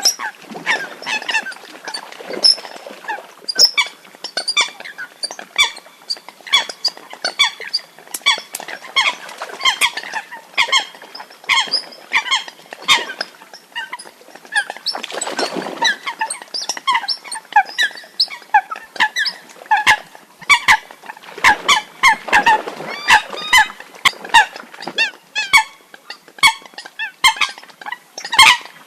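Water-hen calls, a hunting lure recording: many short, sharp calls repeat rapidly and overlap, with a rougher, noisier call around the middle.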